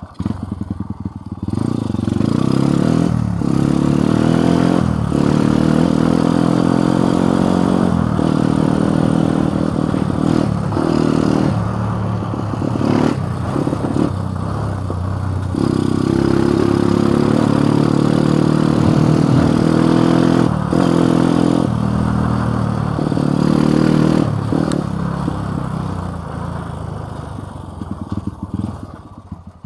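Motorcycle engine under way, its pitch rising and falling as it is throttled up and eased off again and again, with short drops in between, then dying down near the end.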